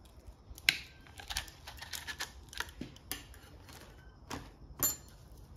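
Scattered light metallic clicks and clinks from a band-type piston ring compressor and hand tools being handled, with one sharper click a little under a second in and another near the end.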